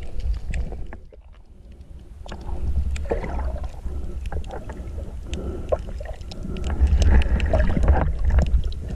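Muffled water movement heard from a camera held under the sea surface: a low rumble with many scattered clicks and knocks. It drops quieter about a second in, then builds back up and is loudest near the end.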